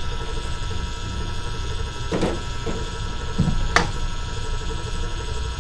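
Steady machine hum, with a few knocks and scrapes of a spoon and a stainless steel bowl as tuna filling is worked out of it into a plastic container; the sharpest knock comes a little before four seconds in.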